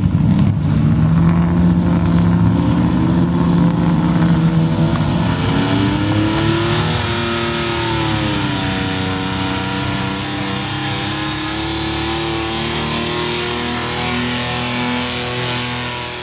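Square-body Chevy pickup's engine revving hard under load as it pulls a weight-transfer sled. Its pitch climbs steadily for about six seconds, surges and dips briefly, then holds high, with a rising hiss as the rear tyres spin and throw dirt.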